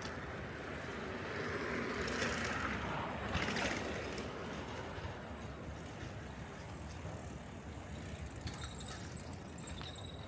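Street ambience with a vehicle passing, its noise swelling about two seconds in and fading by about four seconds, then a steady background hum.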